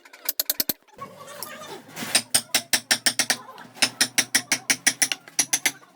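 Quick taps of a mallet on a wood-carving chisel, in bursts of several sharp strikes with brief pauses between them.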